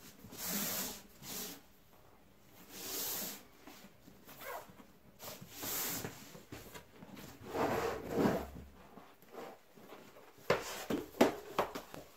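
A cardboard laptop box sliding, scraping and being turned over on a wooden table, in several separate brushing rubs. Near the end come a quick run of sharp taps and knocks as fingers handle the box.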